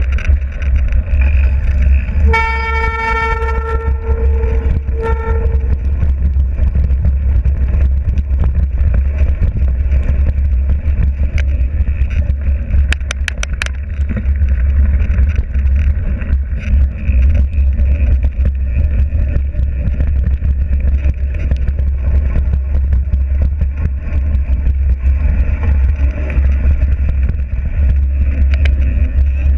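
A vehicle horn sounds twice over a steady low rumble: one long toot of about two seconds, then a short one.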